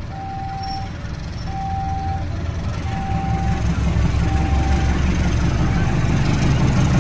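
KAI diesel-electric locomotive approaching with passenger coaches, its low engine rumble steadily growing louder. Over it a level-crossing warning signal sounds one repeating tone, about once every second and a half, fading under the engine noise near the end.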